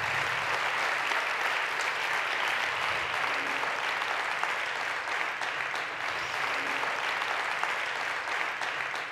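Audience applauding, steady and dense.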